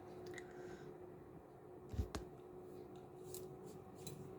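Faint room tone with a steady low hum, a soft thump and click about two seconds in, and a few light clicks later.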